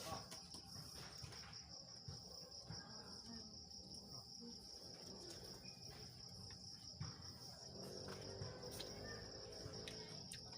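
Insects chirring steadily in a faint, high, evenly pulsing trill, with a few faint scattered knocks.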